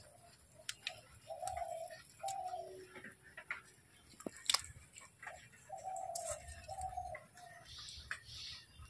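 A dove cooing: two phrases of three short, low notes each, the second phrase starting about three seconds after the first ends. Light clicks and taps are scattered throughout.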